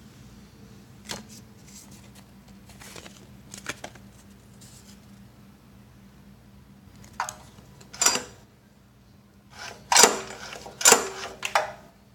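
Scattered handling noises: light clicks, taps and rustles from hands on the engine and its paper tag, over a faint steady hum. The sharpest clusters come near the end.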